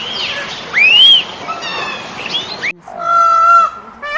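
Animal calls over a noisy background: a few short whistled calls that rise and fall in pitch. About three seconds in, a goose gives one honk.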